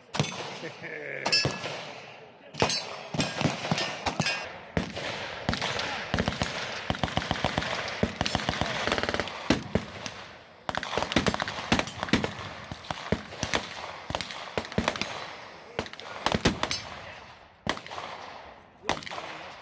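Gunfire on a shooting range: many irregular shots from several guns, with a fast run of rapid shots in the middle.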